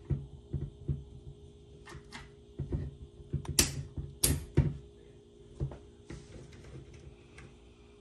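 Small metal parts clicking and knocking as a pistol-wheel roller throttle pedal is fitted onto a Volkswagen pedal assembly by hand, with two sharp metallic snaps about halfway through.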